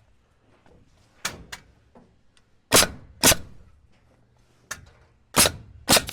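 Nails being driven into a 2x6 sub-fascia board: a series of sharp cracks, the loudest coming in pairs about half a second apart.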